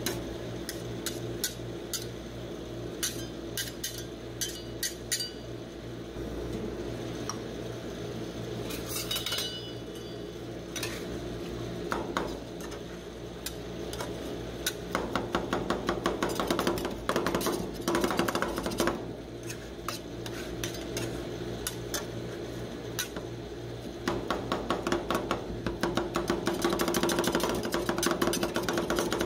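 Two metal spatulas chopping and scraping on a frosted stainless-steel ice cream cold plate, mashing popcorn into the cream base. Sparse single taps at first; from about halfway on come fast runs of rapid chopping strokes. A steady low hum runs underneath.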